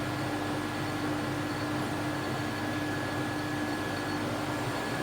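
TV 280 all-geared lathe running smoothly with the spindle at about 224 RPM and the carriage power feed engaged: a steady hum from the geared headstock with a steady whine on top.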